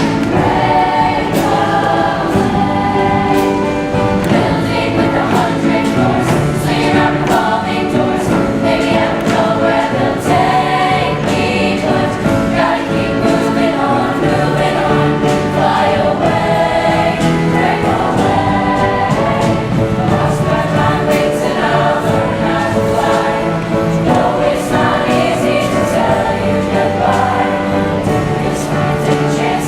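Music: a choir singing over accompaniment with a steady beat.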